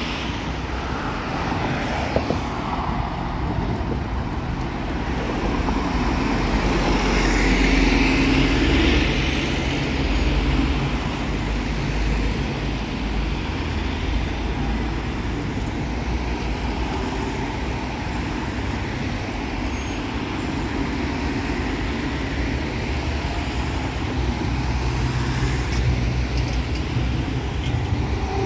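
Steady city road traffic, with cars and other motor vehicles passing on a multi-lane boulevard; one passes louder about eight seconds in. Near the end a tram draws near along the tracks, adding a faint steady motor hum.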